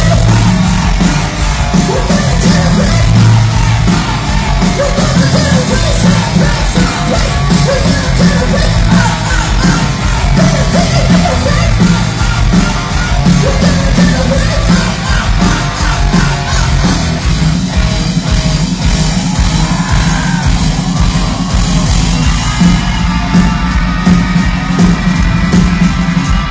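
Live rock band playing loud through a concert PA, heard from within the crowd, with yelled and sung vocals over the band.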